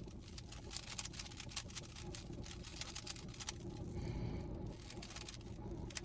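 Rubik's cube being turned quickly by hand: a fast, irregular run of small plastic clicks over a steady low hum.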